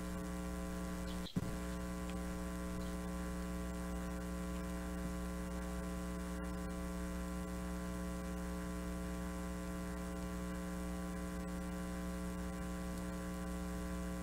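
Steady electrical mains hum with a stack of evenly spaced overtones, and a single brief click about a second in.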